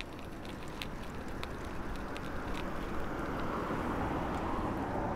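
Street traffic heard from a moving bicycle: a vehicle passes, swelling from about two seconds in and easing off near the end, over a steady low rumble. A few light clicks come in the first three seconds.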